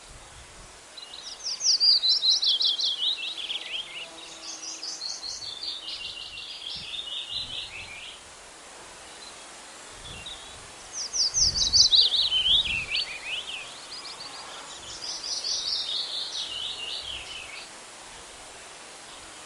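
A songbird singing rapid trilled phrases that fall in pitch. Two phrases come one right after the other, then after a short pause another two, over a steady outdoor hiss.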